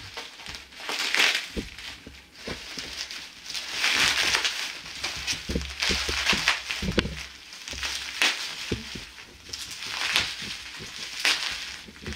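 Packaging being torn open and pulled apart by hand: repeated bursts of ripping and rustling wrapping, with short knocks as the box and contents are handled.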